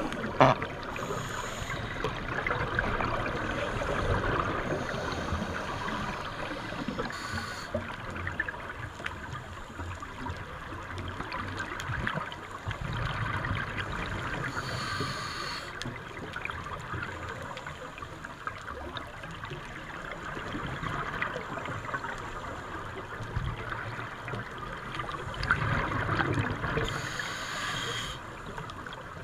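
Muffled underwater noise picked up through a camera's underwater housing: a steady watery hiss and rumble, with short bursts of scuba exhaust bubbles gurgling every several seconds.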